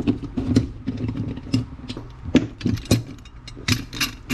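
Irregular series of sharp clicks and knocks, about ten of them, as hard small parts and tools are handled on a work surface.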